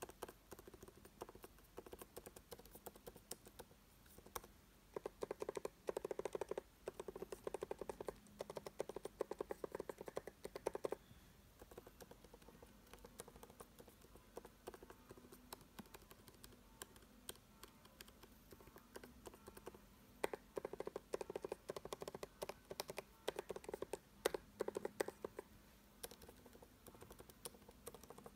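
Keys of a 2016 MacBook Pro 13-inch butterfly keyboard pressed one after another: light scattered clicks, and two runs of rapid, louder taps, one early on and one about two-thirds through. The owner calls the keyboard broken and loud: keys on the right sound decent, while keys in the middle and far left sound like drums.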